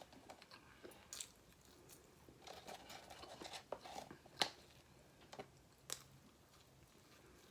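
A person chewing fast food with the mouth close to the microphone, faint wet mouth sounds and scattered small clicks, busiest a few seconds in, with one sharp click about four and a half seconds in.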